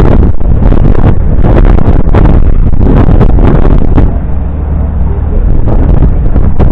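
River cruise boat's engine running under heavy wind noise on the microphone, loud and gusty for about four seconds, then settling to a steadier low hum.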